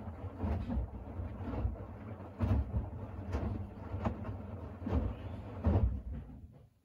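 Siemens iQ700 front-loading washing machine drum turning a load of shirts while it heats the wash to 40°C: the wet laundry tumbles with a soft thud about once a second. The sound dies away near the end.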